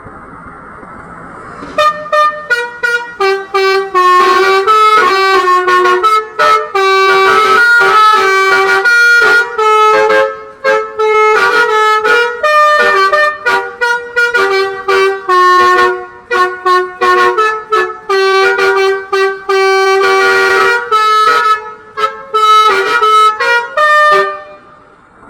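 Tour bus's 'telolet basuri' musical air horn playing a quick melody of short, loud notes that jump up and down in pitch, starting about two seconds in and stopping just before the end.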